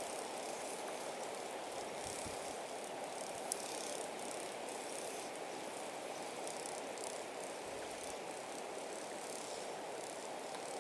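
Steady rush of a flowing river, an even hiss of moving water, with one short sharp click about three and a half seconds in.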